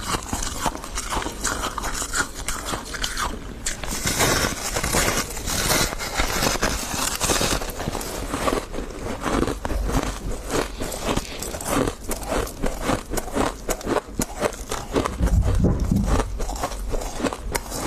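Close-up crunching and chewing of mouthfuls of refrozen freezer frost, a rapid run of crisp icy crunches. It gets denser and louder about four seconds in.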